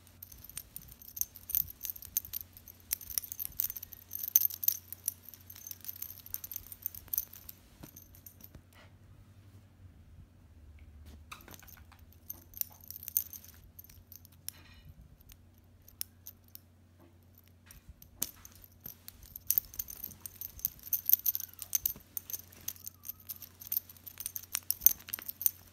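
Light metallic jingling and clinking in irregular bursts, in three spells separated by quieter gaps of a few seconds.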